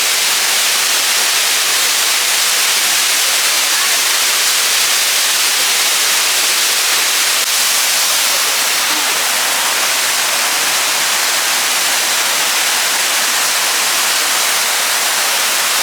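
Waterfall rushing in a steady, unbroken roar of falling water, heard close up from the pool at its foot.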